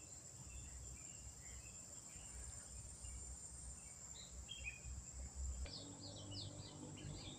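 Tropical forest ambience: a steady high-pitched insect drone, with faint scattered bird chirps and a quick run of short bird notes about six seconds in, over a low rumble.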